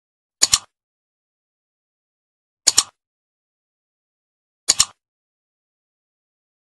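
Three mouse-click sound effects about two seconds apart, each a quick double tick, with dead silence between: the clicks of an animated like, share and subscribe button.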